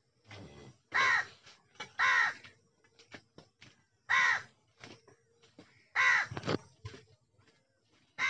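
A crow cawing: about four loud, short, harsh caws a second or two apart, with faint clicks between them.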